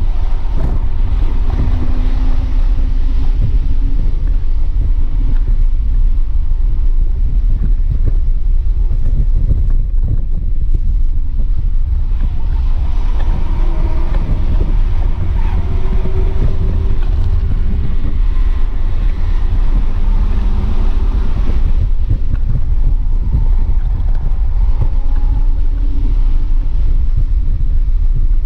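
2007 BMW 328i's 3.0-litre inline-six heard from inside the cabin under hard track driving, its pitch rising and falling with throttle, shifts and braking, with full throttle at high revs near the end. Heavy wind and road rumble run underneath.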